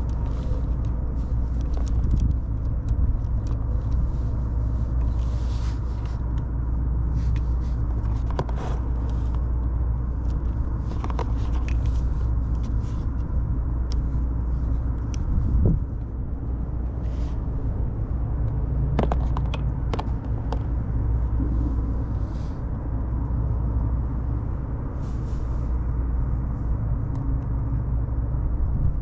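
Steady low mechanical rumble and hum, with scattered light clicks and taps over it.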